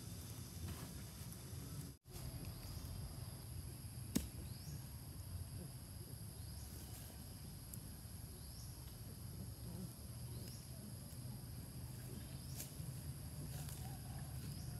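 Rural outdoor ambience: a steady high insect drone, with short falling chirps repeating every second or two over a low rumble. One sharp click comes about four seconds in, and the sound drops out briefly near two seconds.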